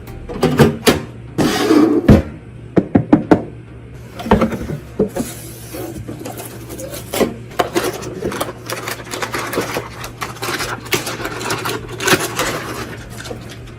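Irregular clicks and knocks of computer parts being handled and fitted together, some in quick runs of several strikes, over a steady low hum.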